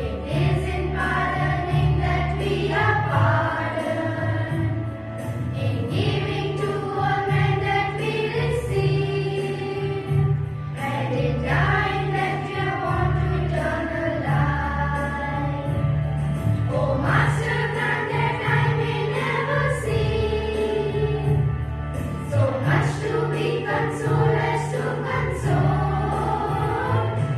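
A choir singing a prayer hymn over an instrumental accompaniment that holds low notes.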